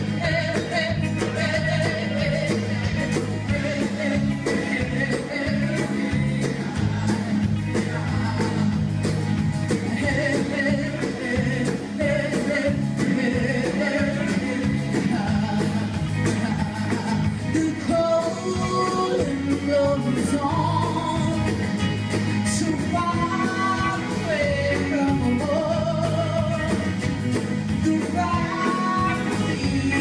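Live band playing a folk-rock song, with electric and acoustic guitars, bass, drum kit and Dene hand drums keeping a steady beat, and singing over it.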